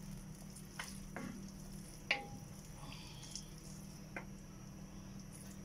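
A wooden spatula stirring noodles and vegetables in a simmering stainless-steel wok, over a steady low hum. The spatula knocks sharply against the pan three times.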